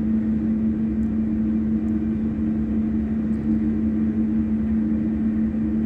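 Steady machine hum: a constant low drone with a rumble beneath it.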